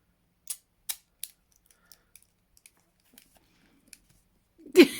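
Sharp metallic clicks from handling a pair of TCH 840 handcuffs: three distinct clicks in the first second or so, then a few fainter ticks. A loud burst of voice, likely laughter, breaks in near the end.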